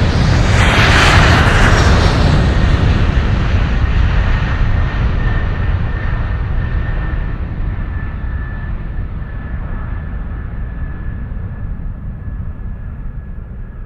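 Jet airliner engine noise passing by: a loud rush about a second in, then fading steadily as the high end dies away first and the plane recedes, with a faint steady whine held through it.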